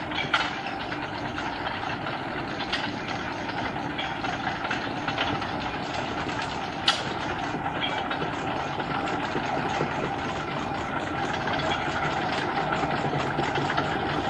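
Steady machinery noise of a canal chain tug (toueur) setting off with a barge in tow, with a few sharp metallic clanks. The noise grows slightly louder toward the end.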